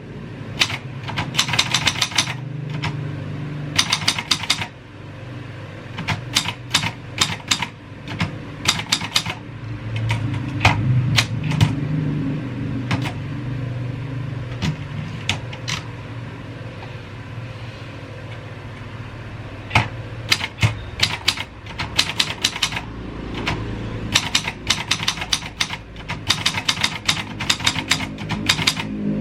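Keys of a Royal 202 manual typewriter striking in quick bursts of typing, broken by short pauses, over a low steady rumble.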